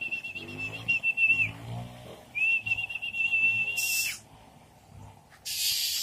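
Someone whistling two long, steady high notes with a slight warble, a call to a tame bird to follow. A short hiss comes near the end.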